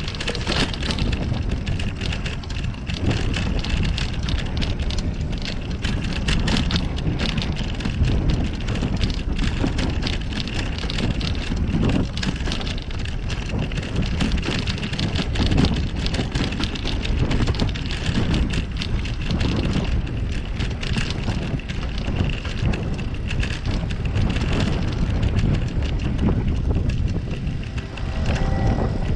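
Wind rumbling on the microphone of a camera riding on a moving bicycle, with tyre and road noise and many small rattles and knocks over the road surface.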